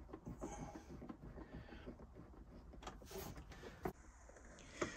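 Faint rustling and small clicks of electrical cables and plastic socket fittings being handled, with two sharper clicks near the end.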